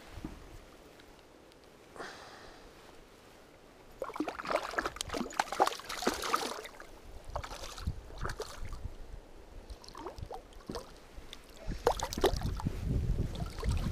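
Water splashing and sloshing in uneven bursts as a hooked trout thrashes at the surface close in, starting about four seconds in. A low rumble joins near the end.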